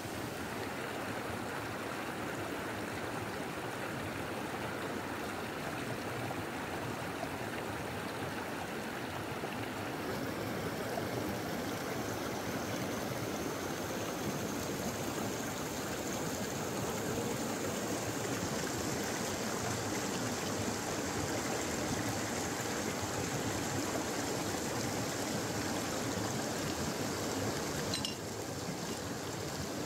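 River water flowing steadily.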